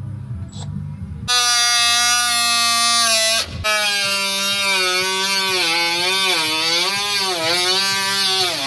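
Electric grinder's motor whining at speed, starting abruptly just over a second in, cutting out briefly and coming back, then running on with its pitch dipping again and again as it is pressed into the metal.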